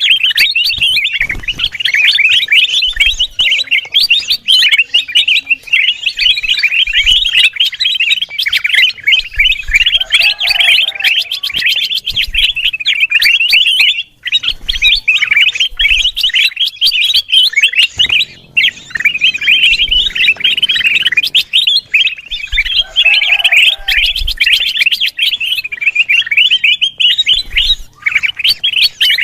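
Kutilang emas bulbul chattering busily in rapid, unbroken runs of high chirps, with only brief pauses about halfway through: a mastered bird-lure call recording.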